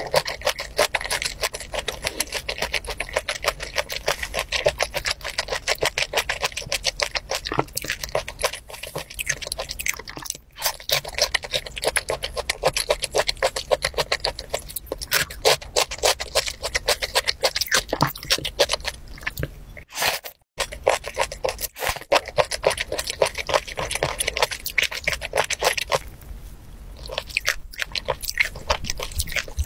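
Close-miked chewing of raw fish slices: a dense, wet run of mouth clicks and smacks, broken by a short silence about two-thirds of the way through.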